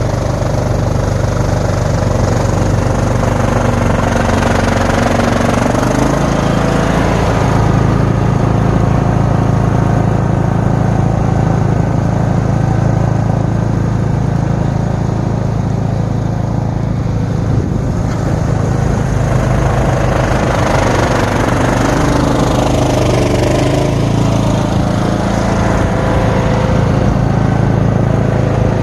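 Cub Cadet XT1 lawn tractor's engine running steadily with its three-stage snowblower attachment engaged, driving and blowing snow. The engine note steps up about six seconds in, and later dips briefly and recovers.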